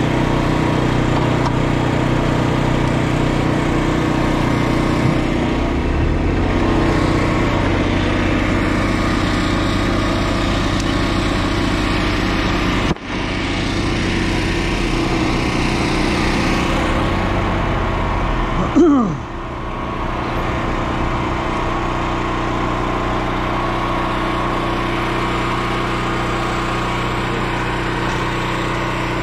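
Small gasoline generator engine running steadily, powering the welding machine. Near the two-thirds point there is a brief loud sound that falls in pitch.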